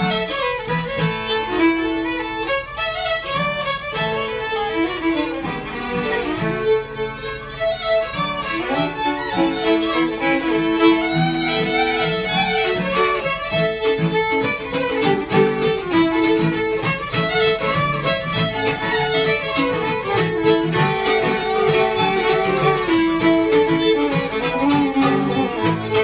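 Three fiddles playing a tune together in a jam, with an acoustic guitar strumming along underneath.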